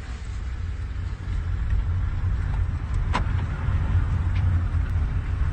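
Steady low rumble of a car driving slowly, heard from inside the cabin, with a brief click about halfway through.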